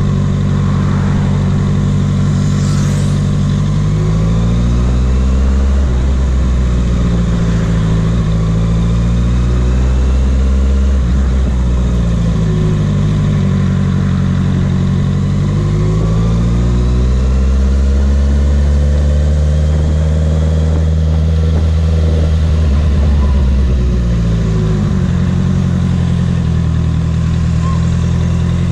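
Sport motorcycle engine heard from the rider's position, rising and falling in pitch several times as the bike speeds up and rolls off the throttle in stop-and-go traffic, with a steadier stretch partway through.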